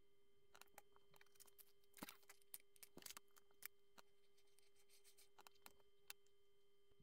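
Faint clicks and light rattles of plastic Lego pieces being handled and pressed together, scattered through and busiest two to three seconds in, over a faint steady hum.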